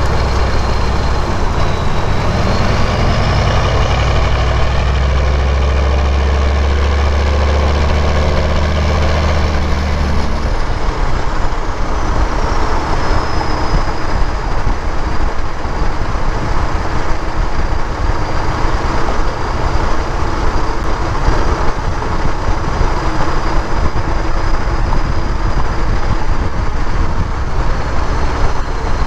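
A 1996 Chevy K1500's 6.5-litre turbo diesel pulling through a straight-piped 4-inch turbo-back exhaust, with a high turbocharger whistle over it. The deep engine drone drops away about ten seconds in, while the whistle falls in pitch and then holds steady.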